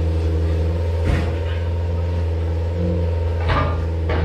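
Heavy equipment engine running steadily at a low even hum, with sharp knocks about a second in, at three and a half seconds, and again at the end.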